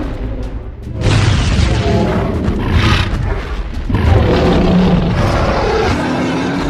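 Cartoon sound effects: heavy booms, starting about a second in, over background music.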